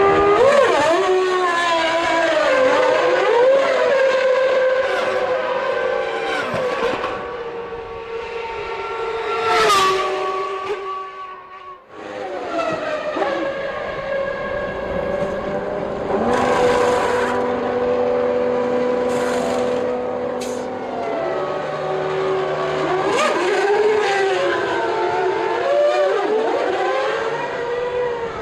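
Formula One cars' V10 engines at racing speed, their pitch climbing and dropping through gear changes and as cars pass. The sound drops away sharply about twelve seconds in, then the engines come back.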